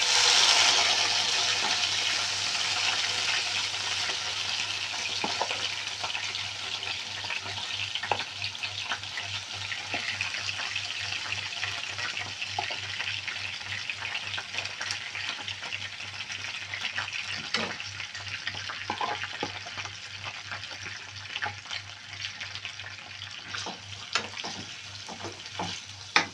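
Marinated chicken livers sizzling in hot oil in a non-stick frying pan. The sizzle starts suddenly as the livers go in, is loudest at first and slowly dies down, with scattered clicks and scrapes of a spoon stirring, one sharp click near the end.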